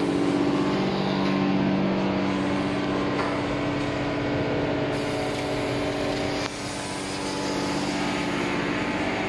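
Tube laser cutting machine running while it processes a rectangular steel tube: a steady machine hum with a few held tones over a hiss, dropping slightly about six and a half seconds in.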